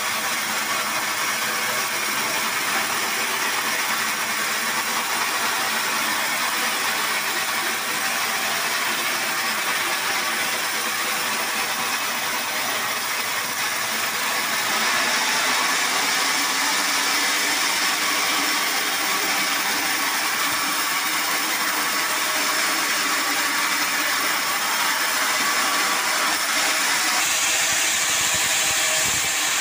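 Band sawmill running and sawing through a hard acacia log, a steady loud mechanical noise. It grows a little louder about halfway through, and a higher-pitched hiss joins near the end.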